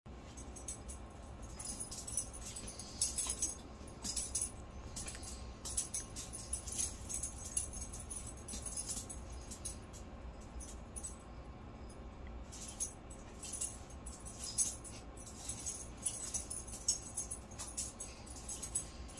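Pet collar jingling in irregular bursts of bright metallic jangles as the animals move and spar, with a lull about halfway through.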